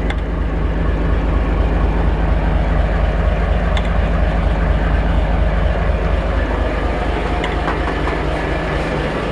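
Yanmar inboard marine diesel engine idling steadily at about 500 rpm, with a steady low engine sound made of fast, even firing pulses. It is still warming up, with the coolant a little over 60 °C.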